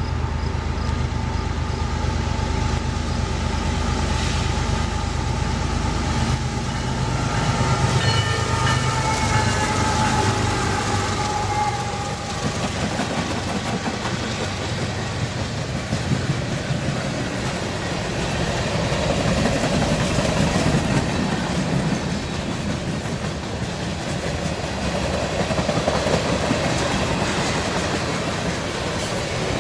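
Freight train passing close by: diesel locomotives running as they come past, then a long string of freight cars rolling by with a steady rumble and rattle of wheels on rail.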